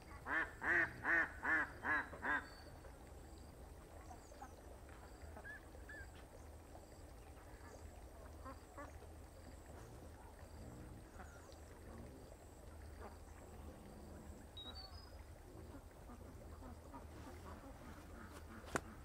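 A duck quacking six times in quick succession in the first couple of seconds. A single sharp click near the end.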